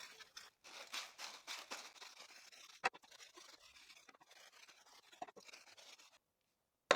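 Hand sanding with 80-grit sandpaper wrapped around a spray paint can, faint scratchy rubbing strokes on the wood to take off burrs. A sharp tap comes near the middle and a knock near the end.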